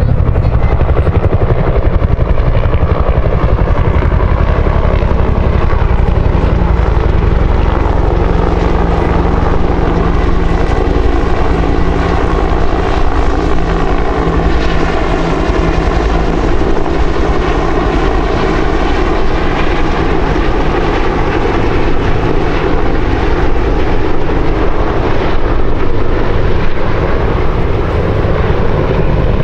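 Bell UH-1H Huey and AH-1 Cobra helicopters flying by in formation: the loud, steady beat of their two-bladed rotors over their turbine engines. In the middle, some of the engine tones bend down and back up in pitch.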